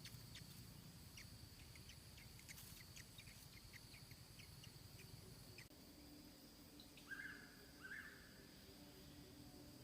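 Faint chirping of small birds, many quick short chirps, then two louder calls about seven and eight seconds in, over a steady high-pitched hum.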